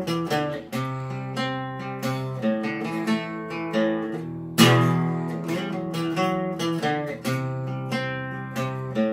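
Acoustic guitar playing an instrumental passage: picked and strummed chords, with a hard strummed chord about four and a half seconds in.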